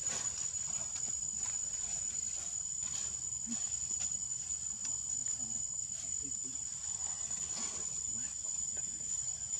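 Steady, high-pitched insect drone, with a few faint ticks over it.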